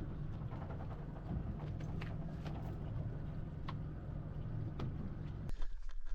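Boat ambience: a low steady rumble with scattered light knocks and clicks of gear on the hull, cutting abruptly about five and a half seconds in to a duller, muffled sound.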